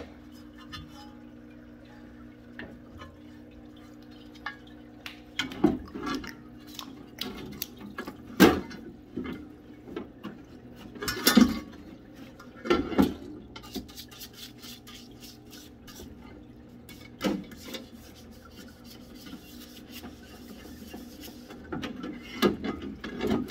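A differential cover knocking and scraping against a small parts washer's tub as it is scrubbed with a solvent-fed brush, with cleaning fluid dripping and splashing. Irregular sharp clanks are heard over a steady low hum; the loudest come about 8 and 11 seconds in.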